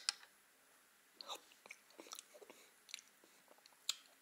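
Faint clicks and soft scraping of a metal spoon spreading squash caviar onto a casserole crust, with two sharp clicks at the start and one near the end, mixed with quiet close-up chewing sounds.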